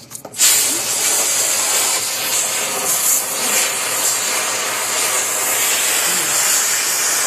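A few clicks, then a loud, steady hiss of rushing air that starts abruptly about half a second in and keeps going evenly.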